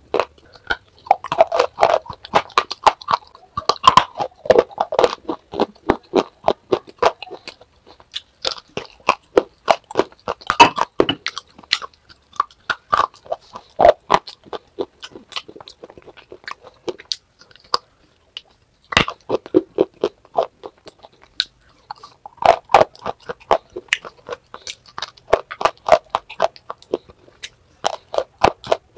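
Close-up crunching and chewing of hard, dry grey clay chunks: bites crack off in quick sharp snaps, each followed by gritty chewing, with a couple of short pauses between mouthfuls.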